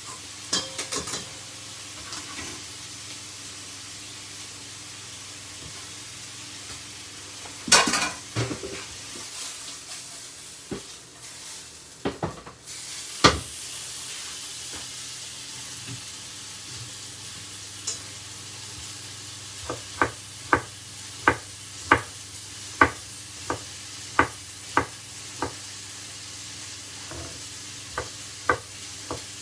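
Steady sizzle of sirloin steaks frying in a pan, with a saucepan being stirred and a loud clatter of utensils against pots about 8 s in. In the second half a knife dices cauliflower on a wooden chopping board: about ten sharp, evenly spaced chops, roughly one and a half a second, and two more near the end.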